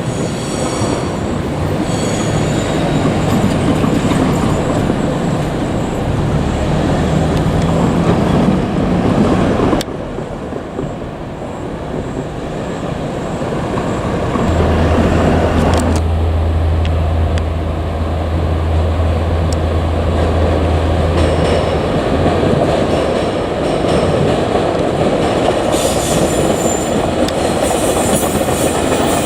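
JR Kyushu 817 series electric multiple unit, two sets coupled, running on the line with steady wheel-on-rail noise. A low hum holds for several seconds in the middle, and the sound changes abruptly twice.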